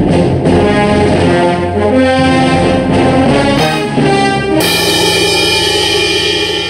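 Loud orchestral music led by brass: a run of short changing notes, then about four and a half seconds in a sudden switch to a held chord.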